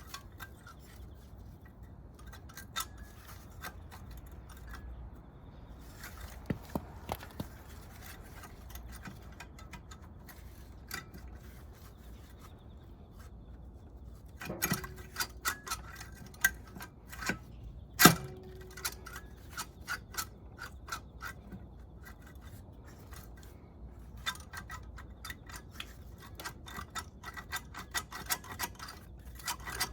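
Metal hand tools and engine parts clicking and clinking during the teardown of a Kawasaki Z400GP engine's top end. There are runs of quick ticks and a single sharp metallic knock with a brief ring about 18 seconds in.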